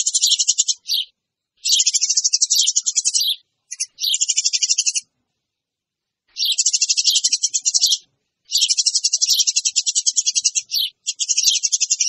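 Eurasian tree sparrow chattering noisily: rapid trains of high chirps in bursts of one to two seconds, broken by short pauses, the lure call used to draw in sparrows.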